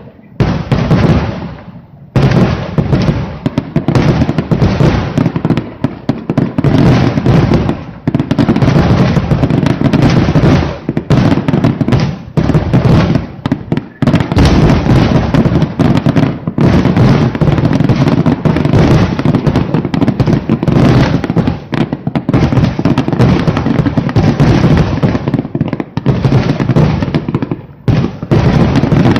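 Loud rapid-fire barrage of aerial firework shells bursting in quick succession, packed so close that the booms and crackles run together. The barrage drops back briefly about two seconds in, around the middle, and near the end.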